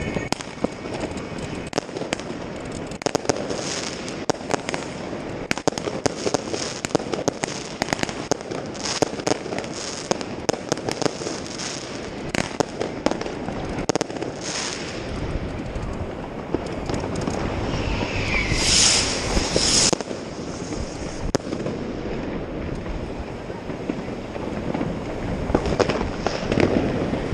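Fireworks and firecrackers going off all around in a continuous stream of sharp bangs and crackles. About eighteen seconds in, a rising whistle and hiss stands out.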